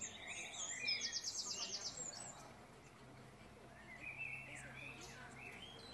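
Small birds singing and chirping: a fast trill of repeated high notes about a second in, with scattered lower chirps before and later.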